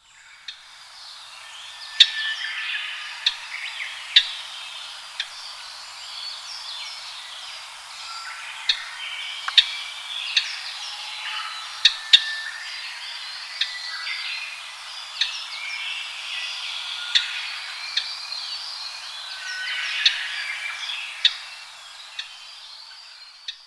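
Japanese grosbeaks calling: busy chirping and twittering, cut through by sharp, short call notes about once a second or so.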